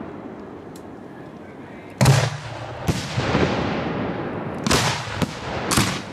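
Aerial display firework shells bursting overhead. A loud boom comes about two seconds in, followed by several more sharp bangs over the next four seconds, each trailing off in a crackling hiss.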